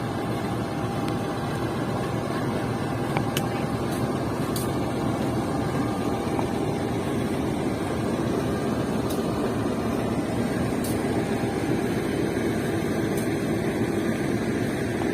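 Passenger train rolling through the station as it departs, a steady rumble with a few faint, irregular clicks.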